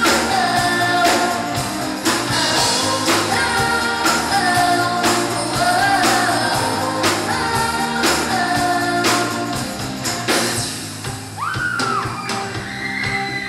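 A pop-rock song with a lead vocal over sustained instruments and a steady beat of strong strokes about once a second.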